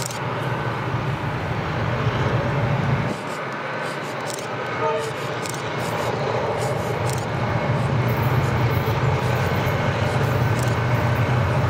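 Diesel locomotives of an approaching container freight train, led by a Victorian Railways T class with C, CLF and CLF class units behind, working under power: a steady low engine drone that grows louder as the train nears. A brief distant horn note sounds about five seconds in.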